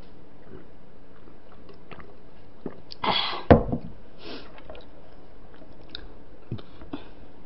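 A drinking glass set down on a wooden table with one sharp knock about three and a half seconds in, just after a short breathy rush of air. Soft chewing and small clicks of eating run around it.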